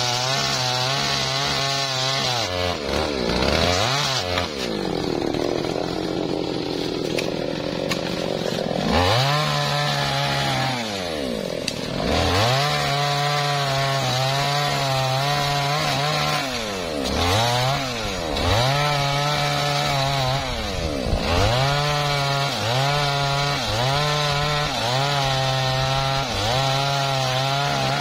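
Two-stroke chainsaw cutting through a dead, dry teak log: the engine runs at full throttle under load in long stretches and drops back toward idle several times in between as the throttle is released.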